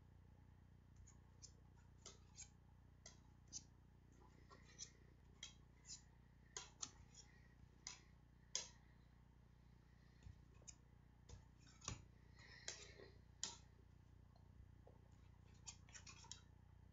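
Plastic CDs clicking and scraping against each other as they are set onto a stack and straightened by hand: quiet, irregular sharp clicks, a few louder ones, over a low steady hum.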